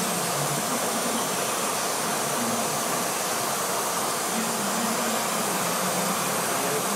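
Steady whooshing noise of a fan or blower running, even in level throughout.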